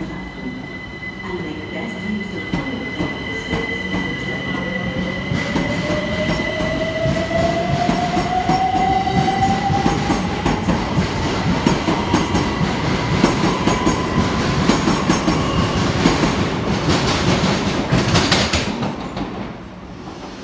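Class 387 Electrostar electric multiple unit pulling away along the platform. Its traction motor whine rises steadily in pitch as it accelerates, and the wheels clatter and squeal over the rails, growing louder and peaking shortly before the noise drops away near the end.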